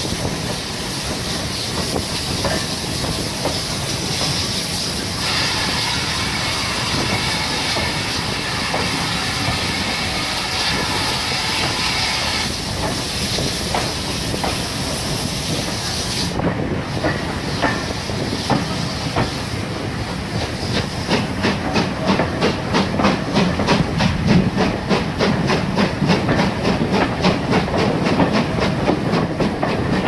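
Steam-hauled heritage train heard from inside a carriage as it gets under way: first a steady steam hiss, then, from about two-thirds through, a quick rhythmic clickety-clack of the wheels over the rail joints that grows louder as the train picks up speed.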